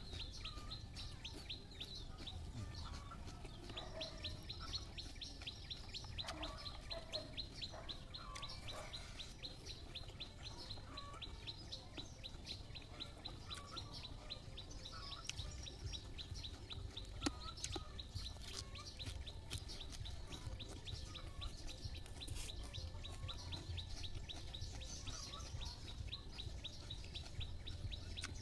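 Birds chirping: a rapid, even, high-pitched ticking trill keeps going throughout, short rising chirps repeat every second or two, and a low rumble sits underneath.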